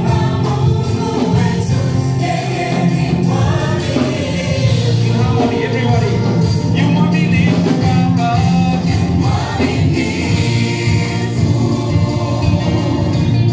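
Gospel worship song: a group of voices singing together over steady instrumental backing.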